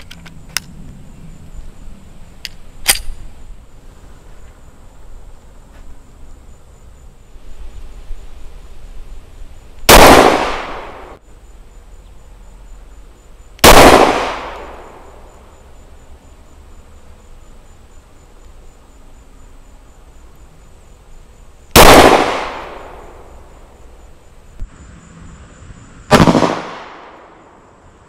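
Glock 30 compact pistol firing .45 ACP: four single shots, each ringing out and echoing away over about a second. Two come about four seconds apart near the middle, and two more about four seconds apart near the end.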